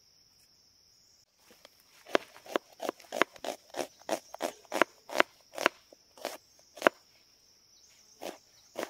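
Knife chopping onion and chilli on a board: a run of sharp, even chops, about two to three a second, starting about two seconds in and thinning to a few spaced strokes near the end. Insects shrill steadily in the background.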